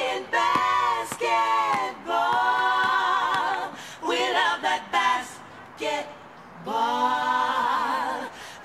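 Unaccompanied singing in phrases of long held notes with vibrato, separated by short breaths.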